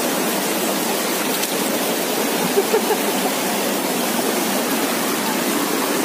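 Rushing water of a shallow mountain stream pouring over rocks and a small cascade: a steady, even rush.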